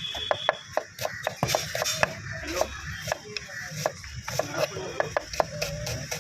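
Quick, irregular clicks and knocks of bhel puri being prepared, several a second, with voices in the background.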